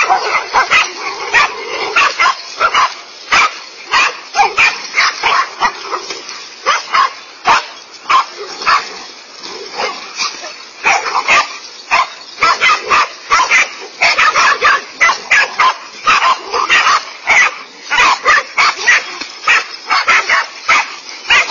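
Several dogs barking rapidly and without let-up, two or three sharp barks a second, as the pack mobs and attacks a large snake.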